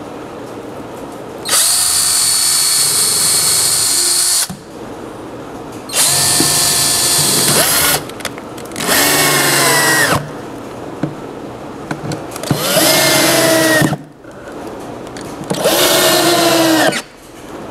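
Electric drill running a countersink bit into wooden drawer boxes, in five bursts of one and a half to three seconds, the motor speeding up at the start of several and winding down as each stops.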